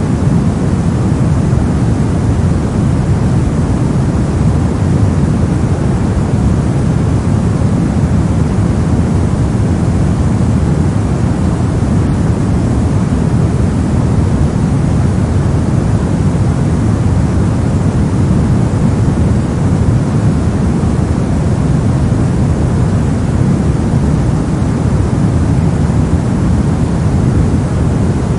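Steady soft noise for sleep or study, a constant hiss weighted heavily toward the low end and gentle in the treble, with no changes.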